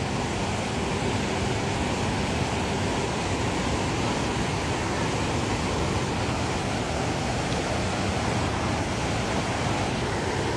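Niagara Falls on the US side: a steady, unbroken rush of falling water.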